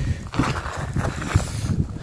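Footsteps on the forest floor with rustling and irregular knocks from handling close to the microphone.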